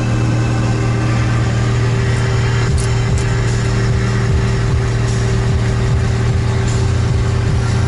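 Car interior at cruising speed: steady engine drone and tyre and road noise. Two brief faint ticks come about three seconds in.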